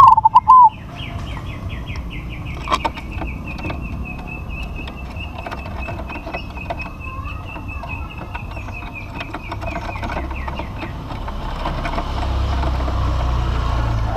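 Zebra dove (perkutut) cooing: a short, loud burst of a few notes at the very start. A long, fast pulsed trill follows for about ten seconds over a low background rumble.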